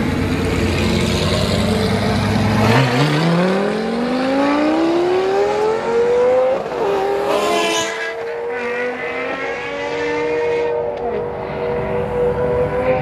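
Lamborghini Gallardo's V10 pulling away hard: a low rumble, then the engine note climbs steeply for about four seconds, dips briefly at an upshift, and holds high as the car accelerates off.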